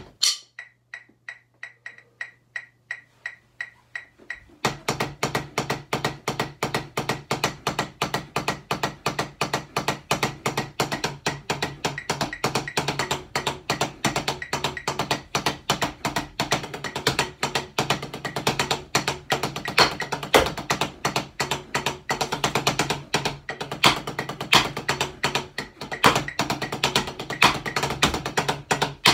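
Wooden drumsticks playing fast rudiment patterns on a set of rubber practice pads laid out like marching tenor drums (quads), a dense stream of sharp taps with some louder accents. For about the first four seconds there is only a steady quiet click about twice a second, then the fast playing starts again.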